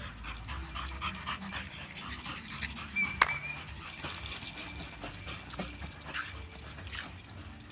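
A dog panting in quick, uneven breaths, with a sharp click and a short high note about three seconds in.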